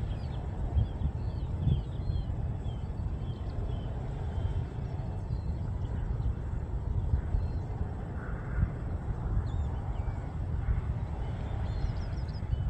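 Steady wind rumble on the microphone, with small birds chirping in short rising and falling notes, a cluster of them at the start and again near the end.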